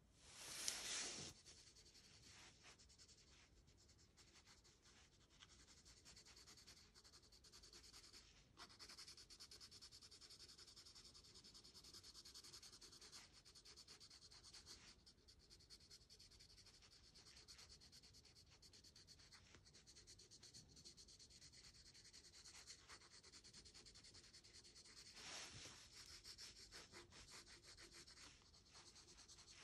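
Faint graphite pencil shading on sketchbook paper: a continuous soft scratching made of many quick, dense strokes. A brief louder rustle comes about a second in.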